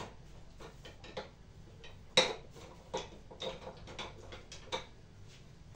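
Irregular light clicks and taps of kitchen utensils being handled, the sharpest about two seconds in.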